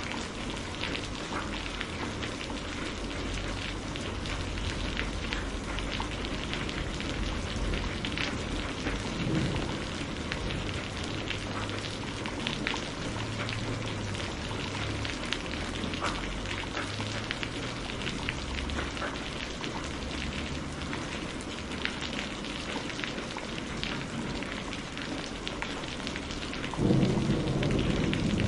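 Steady heavy rain falling, with many separate drop hits ticking through the noise. Near the end a low rumble of thunder starts to build.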